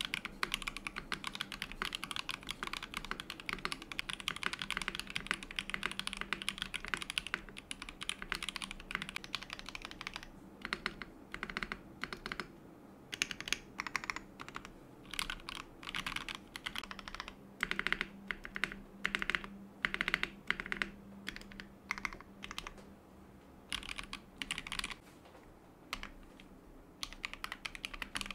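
Mechanical keyboard with PBT keycaps (PBTFANS Deep Sea Predator) and no case foam being typed on: fast, continuous clacking for about ten seconds, then slower single keystrokes and short runs with pauses between, and fast typing again near the end.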